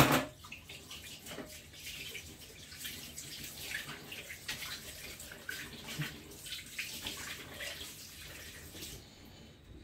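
Kitchen tap running while a knife is rinsed under it, the water splashing unevenly; a sharp knock at the very start, and the water stops about nine seconds in.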